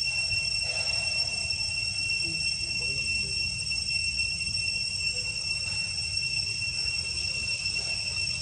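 Insects droning in a steady, high-pitched unbroken tone, over a low rumble.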